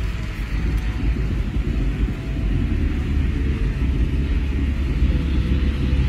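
Steady low rumble of a car being driven: road and engine noise heard from inside the moving car.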